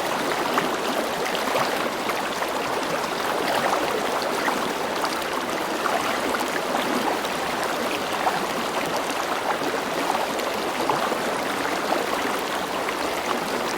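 River water flowing steadily over stones, a continuous babbling rush with small splashes and gurgles throughout.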